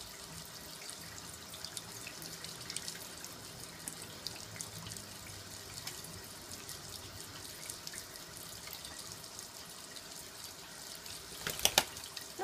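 Thin stream of water running from a sink faucet and splashing into the basin, with many small drip-like ticks. A brief louder rustling burst comes near the end.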